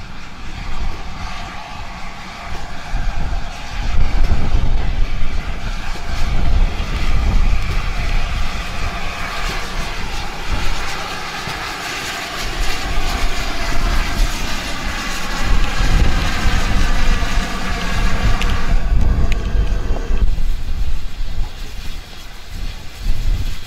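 GWR Hall class 4-6-0 steam locomotive 6989 Wightwick Hall running slowly past with its coaches, a steady rumble with wavering higher-pitched tones through the middle.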